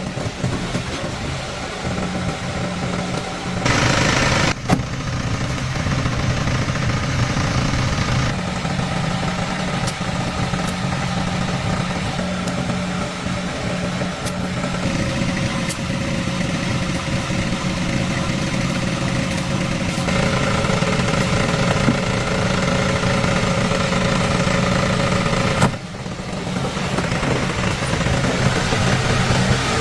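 A motor vehicle engine running steadily with a low hum, in several short clips joined together, the sound changing abruptly at each cut.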